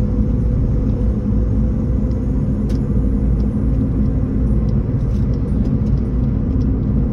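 Steady low rumble of a car being driven along the road, engine and tyre noise heard from inside the cabin.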